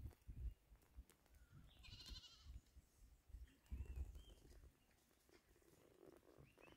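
A goat bleats once, faintly, about two seconds in, its pitch wavering. Low rumbles on the microphone come and go, and near silence fills the rest.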